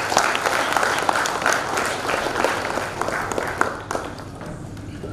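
Audience applause: dense clapping that thins out about four seconds in.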